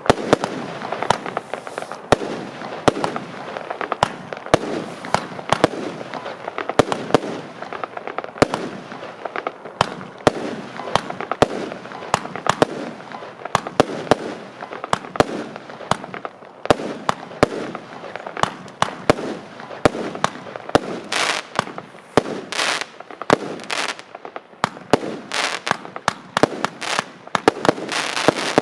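Panda Magma Burst firework battery firing shot after shot: several sharp bangs a second from launches and bursting shells, with crackling between them. From about two-thirds of the way in, bursts of hissing crackle grow louder and denser.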